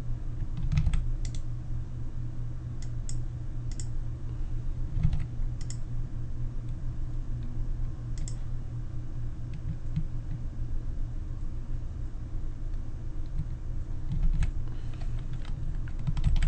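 Computer keyboard keys clicking now and then, with a short cluster of clicks near the end: keyboard shortcuts such as Z and Command-Z pressed on a Mac. A steady low hum runs underneath.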